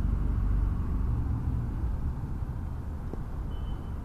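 Steady low outdoor rumble, strongest in the first second and easing after, with a faint single knock about three seconds in.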